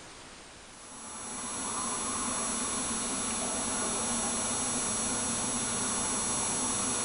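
Steady background hum and hiss fading up about a second in, with several thin, steady high-pitched tones over it.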